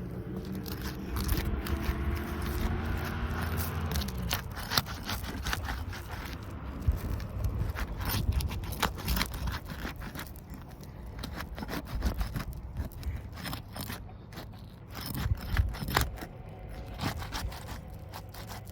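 Roof Snake shingle-removal tool scraping and cracking under asphalt roof shingles as it works to break the sealant bond between them, in quick irregular scrapes and sharp cracks.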